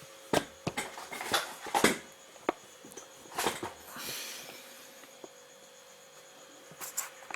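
Handling noises at a front-loading washing machine: a quick run of clicks and knocks in the first two seconds, another knock a little later, a short rustle about four seconds in, and a couple more clicks near the end, over a faint steady hum.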